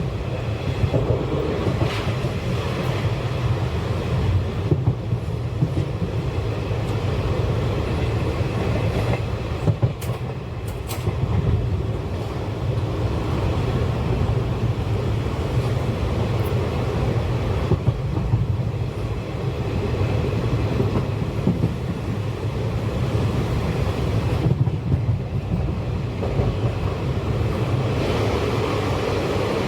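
Wheels of a moving passenger train running over the track: a steady low rumble with irregular clacks over the rail joints.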